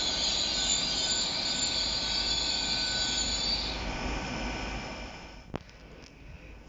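LNER Azuma (Hitachi Class 800) passenger train running slowly past, its wheels squealing high and shrill over a low rumble. The squeal stops about four seconds in and the train sound fades away. A single sharp click comes near the end.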